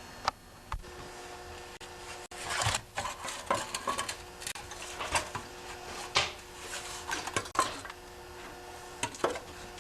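Irregular metallic clinks, knocks and scraping of a wrench on bolts and the engine's sheet-metal shroud being worked loose.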